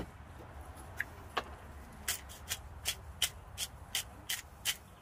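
One sharp knock right at the start, then a hand-twisted salt and pepper grinder clicking as its mechanism is turned: a couple of clicks, then from about two seconds in a steady run of about four clicks a second.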